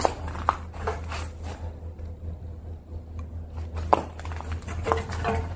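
Footsteps crunching and knocking over litter and debris, a handful of irregular steps, with a low steady hum underneath.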